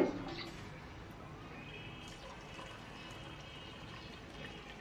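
Water poured in a thin stream into a pot of fried rice and lentils, a faint steady splashing, adding the cooking water for khichuri. A short knock sounds right at the start.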